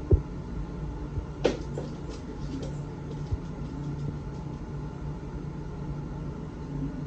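Reef aquarium pumps and equipment running with a steady low hum, with a couple of brief knocks near the start.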